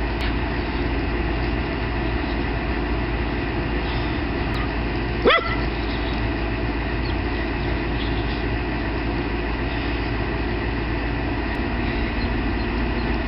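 Shetland sheepdog gives one short, sharp bark about five seconds in, over a steady background noise.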